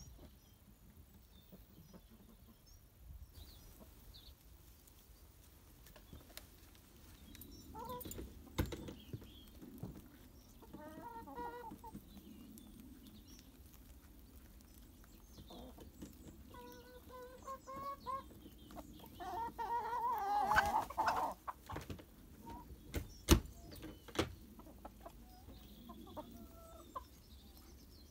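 Domestic hens clucking and calling in short bouts, several times over, the loudest bout about twenty seconds in. A couple of sharp knocks stand out, the strongest about twenty-three seconds in.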